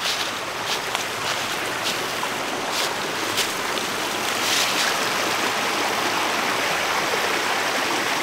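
A stream of flowing water rushing steadily, growing a little louder about halfway through, with a few footsteps on the trail in the first three seconds or so.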